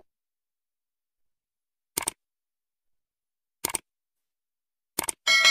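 Subscribe-animation sound effects: three quick double mouse clicks, about two seconds in, near four seconds and near five seconds, then a bell ding near the end that rings on with several clear tones.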